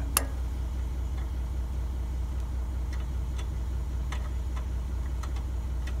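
An engine idling steadily in the background, a low even hum. About a quarter second in there is one sharp metallic click, followed by a few faint ticks, as the sawmill's track roller and its bolt are handled.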